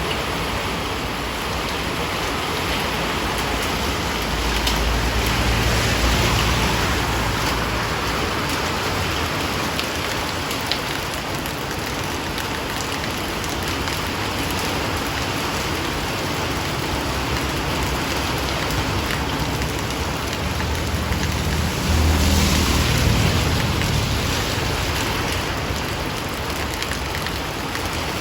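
Steady heavy rain falling, a dense even hiss. A low rumble swells twice, about five seconds in and again near twenty-two seconds.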